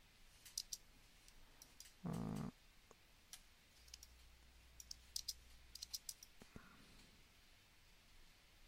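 Faint, scattered clicks of a computer mouse and keyboard, several in quick clusters. A brief hum, louder than the clicks, about two seconds in.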